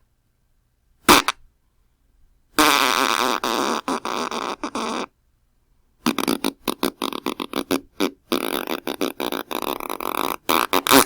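Fart sound effects: a short one about a second in, then a long drawn-out fart of about two and a half seconds, then a rapid sputtering string of short fart pulses through the last five seconds.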